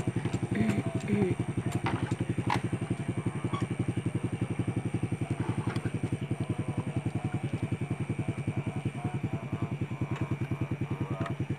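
A hand tractor's diesel engine running steadily at idle, a fast, even thumping. In the first few seconds, iron cage wheels clank as they are lifted off a wooden cart.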